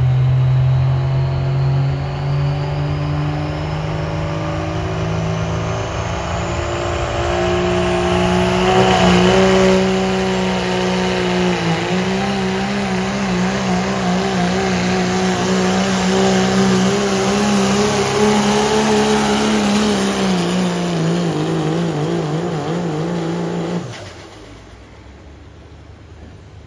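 Pro Street class diesel pickup truck at full throttle pulling a sled, its engine note climbing slowly while a thin high whine rises over the first several seconds. Near the end the engine sound cuts off abruptly as the pull ends.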